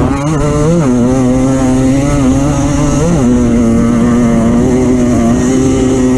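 Off-road vehicle's engine running under load, its revs wavering, twice rising briefly and dropping back, then holding steady.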